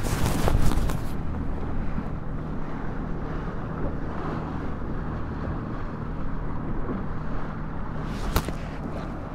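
Steady drone of a motorboat's engine under wind buffeting the microphone, with a few knocks about a second in and a sharp knock near the end.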